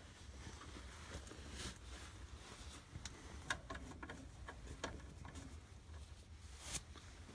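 Faint, irregular clicks and light taps of screws and sheet-metal parts being handled in an air handler's electric heat kit, over a low steady hum.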